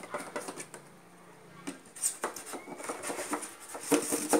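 A blade cutting and prying through thermocol (expanded polystyrene) foam: squeaky, scratchy crackles and clicks, louder about two seconds in and again near the end.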